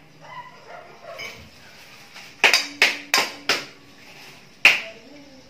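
A cooking utensil knocks sharply against cookware four times in quick succession, about three a second, then once more a second later, while fried noodles are scooped from a frying pan onto a plate. Lighter scraping and clinking of the noodles being moved comes before the knocks.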